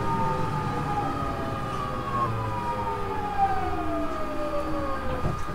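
GTO VVVF inverter and traction motors of a JR East 209 series motor car whining as the train slows: several tones together fall steadily in pitch over the rumble of the running gear.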